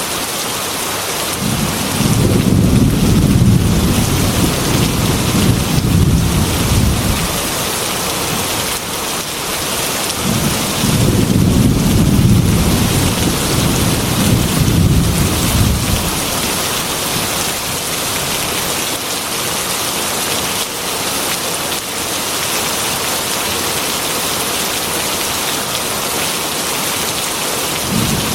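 Heavy rain pattering steadily on a glass window, with two long low rolls of thunder rumbling under it, the first starting about a second and a half in and the second about ten seconds in.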